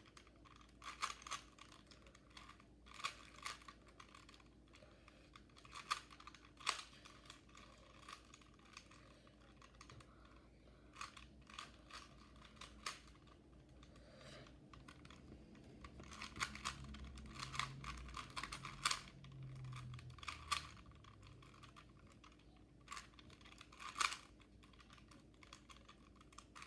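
Rubik's Cube being turned quickly by hand during a solve: irregular runs of plastic clicking and clacking as the layers are twisted, with short pauses between bursts of turns.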